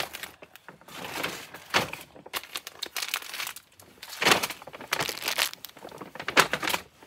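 Brown paper gift bag rustling and crinkling in irregular bursts as it is handled and items are put into it.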